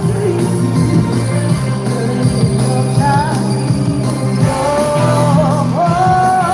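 Upbeat trot song playing, with a steady bass line under held melody lines.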